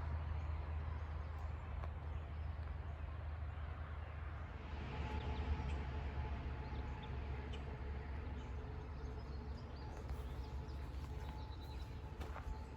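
Footsteps on a woodland trail over a low rumble of wind on the phone's microphone; a faint steady hum joins in about five seconds in.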